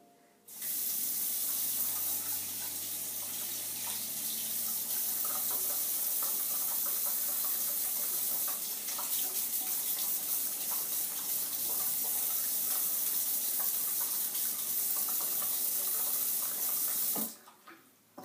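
Single-lever bathroom faucet running steadily into a ceramic vessel sink, the stream splashing over a baby's hands, then shut off suddenly at the lever about a second before the end.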